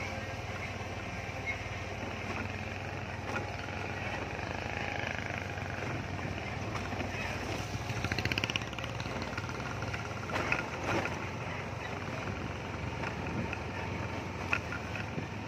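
Steady vehicle engine hum with road noise from travel on a rough dirt road. A brief rapid rattle comes about eight seconds in, and a few sharp knocks come around ten to eleven seconds and again near the end.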